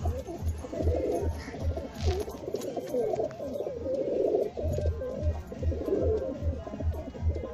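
Domestic pigeons cooing in the loft, over background music with a steady low beat about twice a second.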